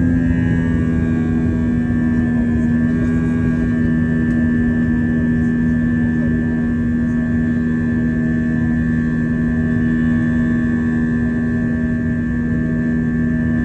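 Jet airliner engines during takeoff, a steady drone holding several steady tones, with a slight shift in pitch in the first few seconds.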